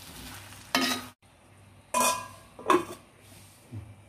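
Metal spatula clanking against a kadai while mango pickle pieces are stirred, with a sharp clank about a second in. Then two ringing metal clinks come about two and three seconds in as the steel lid goes onto the pan, and a softer knock follows near the end.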